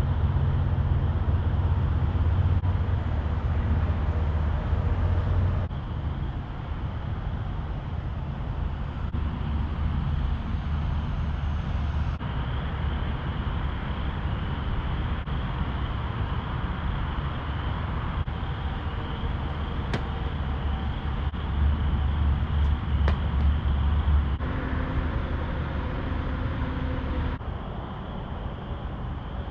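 Car driving on a road: steady low road and engine rumble, changing abruptly in level and tone several times.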